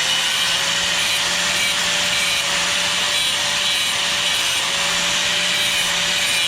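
Grinder running steadily with its wheel held against a washing machine motor's winding wire, grinding into it to test the metal; the wire grinds shining white, showing aluminum rather than copper.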